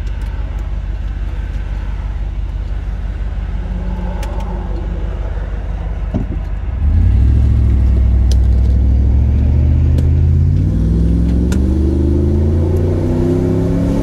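Truck engine and road noise heard from inside the cab: a steady low hum, then about halfway through the engine gets suddenly louder and its note climbs steadily in pitch as the truck accelerates.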